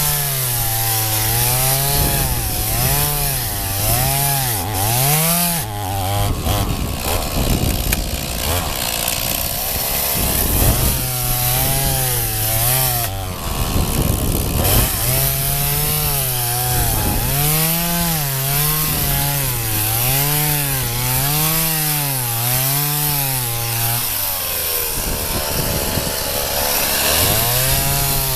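Two-stroke chainsaw cutting through ice, its engine note rising and falling over and over as the chain bites and frees. A few times the engine note gives way to a harsher, grittier noise for a second or more.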